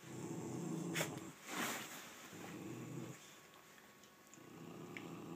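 A dog growling low in three drawn-out bouts, with two short breathy sniffs between the first two.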